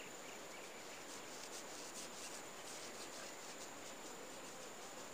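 Quiet background: a faint even hiss with a thin, steady high-pitched tone and light scattered ticks.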